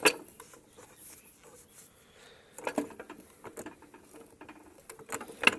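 Scattered light clicks, scrapes and knocks from handling the old rusty lawnmower's metal parts. There is a sharp knock at the start and another near the end.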